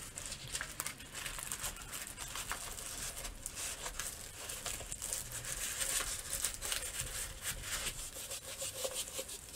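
Plastic-film-covered diamond painting canvas crinkling and rubbing as it is rolled back and flattened by hand, with many small crackles throughout.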